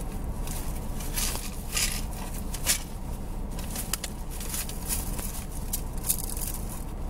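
Intermittent rustling and crinkling of items being handled and sorted, with a few sharp clicks, over the steady low hum of a car engine idling while it warms up.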